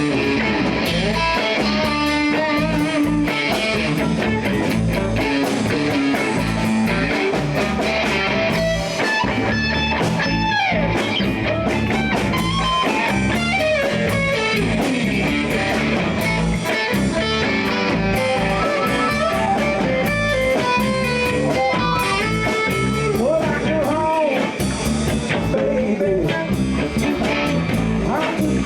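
Live blues band playing: an electric guitar lead with bending notes over bass guitar and drums.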